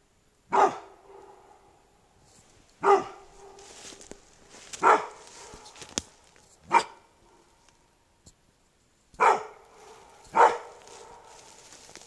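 Dog barking: six single loud barks spaced about two seconds apart, with a longer gap before the last two.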